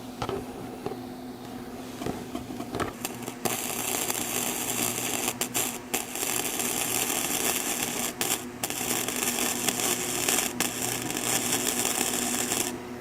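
Flux-core wire-feed welder arc crackling and sizzling in one long pass on thin steel exhaust pipe. It starts about three seconds in, with a few momentary breaks, and stops just before the end. The welder hums steadily underneath.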